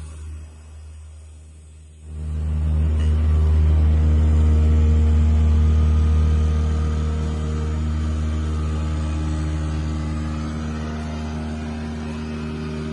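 CNC foam cutting machine running with a low, steady machine hum that swells sharply about two seconds in, then holds and slowly eases off.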